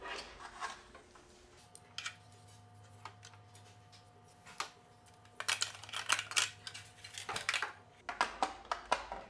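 Hard plastic parts of a table tennis robot being handled and pushed into place: scattered clicks and knocks, coming in a quick cluster about halfway through. A faint steady hum runs underneath for most of the time.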